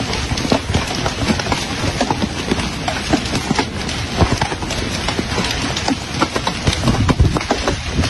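Heavy hail falling: a dense, irregular rattle of hailstones striking the ground and trees over a steady hiss.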